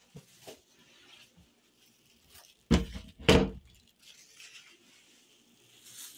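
Two loud thumps about half a second apart, with soft rustling before and after them.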